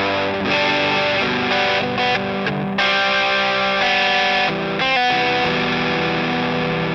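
Electric guitar played through an overdrive pedal, a Love Pedal Eternity–style circuit, giving a driven, distorted tone as chords ring and change every second or so.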